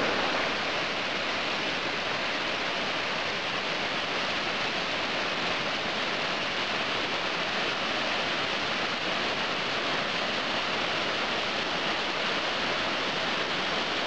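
Tall mountain waterfall in spring snowmelt flow: a steady, even rush of water falling onto rocks, heard close to its foot.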